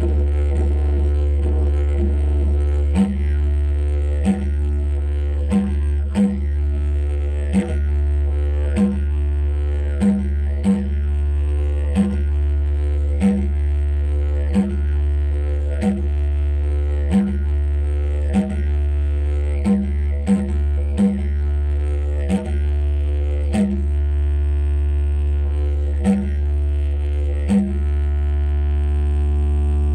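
Didgeridoo playing a continuous low drone with a rich stack of overtones, pulsed by rhythmic accents about every second and a half that pause briefly near the end.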